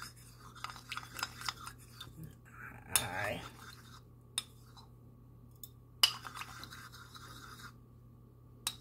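A red plastic measuring spoon stirring and scraping in a small ceramic bowl of warm water, dissolving a powder, with a few sharp clicks of the spoon against the bowl.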